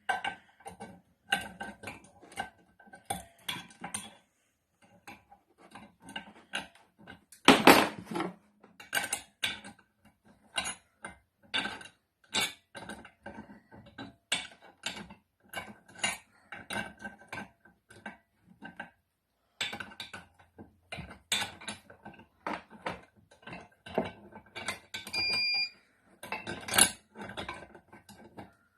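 Hand tools clicking and clinking on metal as the nuts of a puller are worked to draw the wastegate flapper bush out of a BMW N54 turbo. There is a loud knock about eight seconds in and another near the end, and a short beep about 25 seconds in.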